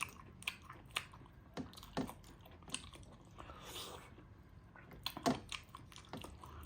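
Close-up eating sounds: chewing, with irregular wet mouth clicks and smacks.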